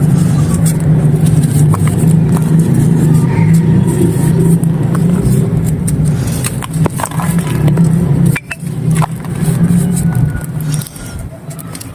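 Dry clay being crumbled, with scattered sharp cracks and crunches, several close together about two thirds of the way in. Under it runs a loud, steady low hum that eases near the end.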